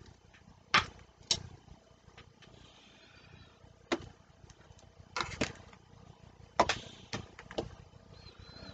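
Small plastic gel polish pots being handled and set down on the work mat: about eight sharp clicks and knocks, singly and in quick pairs, the loudest about a second in and about two-thirds of the way through.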